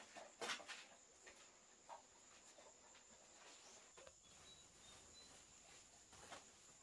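Near silence: quiet background with a faint steady high-pitched whine and a few scattered faint knocks.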